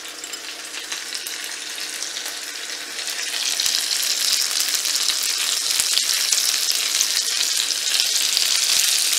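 Seasoned black sea bass frying in hot clarified butter in a skillet. It makes a crackling sizzle that grows louder about three seconds in, as the fish goes into the pan.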